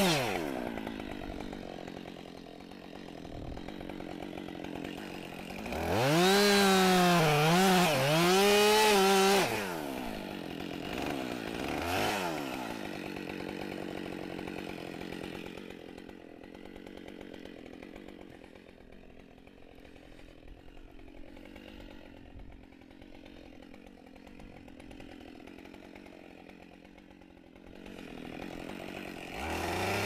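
Two-stroke Husqvarna chainsaw cutting into the trunk. After a few seconds it runs at full throttle, its pitch dipping and wavering under load for about three seconds, then drops back. It blips once, runs low and quiet for a long stretch, and revs up again near the end.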